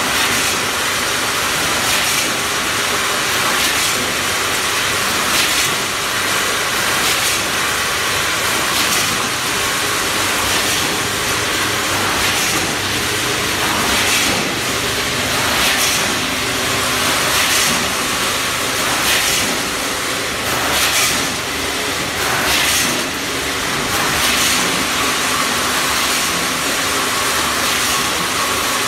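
Vertical form-fill-seal packing machine, fed by a Yamato 14-head weigher, running through its bagging cycle on frozen beans: a steady mechanical hiss with a louder rush recurring about every second and a half to two seconds, one per bag.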